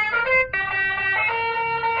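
Telolet basuri horn module playing its multi-note melody: held horn notes that step to a new pitch every half second or so, with a short break about half a second in.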